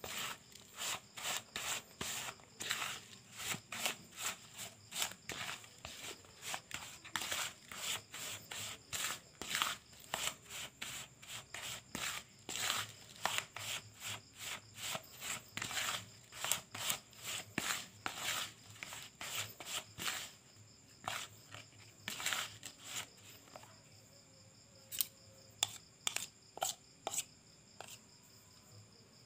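A plastic spoon stirring and scraping a dry, crumbly bait powder around a plastic bowl in quick repeated strokes, several a second. In the last third the strokes come fewer and further apart.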